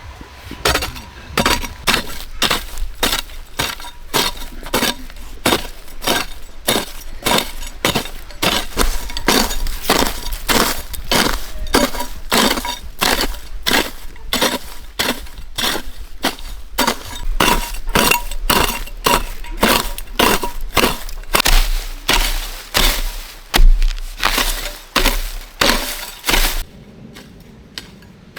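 A run of sharp strikes on bamboo, about two to three a second, as the poles are cut. The strikes stop shortly before the end.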